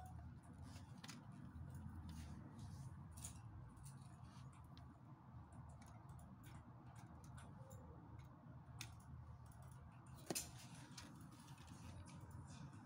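Faint clicks and light rattling of LEGO Technic plastic parts as the model car is handled and its mechanisms are worked, with one sharper click about ten seconds in, over a low hum.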